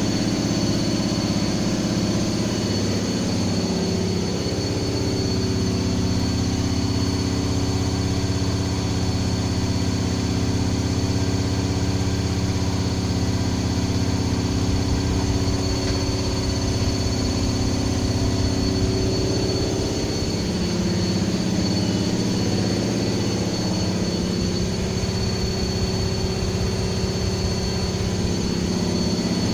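Washing machine running: a steady motor hum with a low drone from the turning drum and a thin high whine, its low tones shifting a little around the middle.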